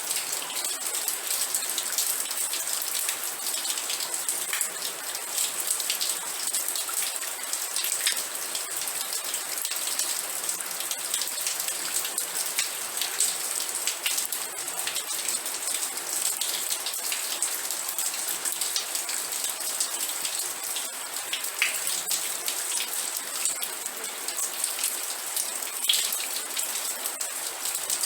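Steady rain falling, with many separate drops pattering on a surface.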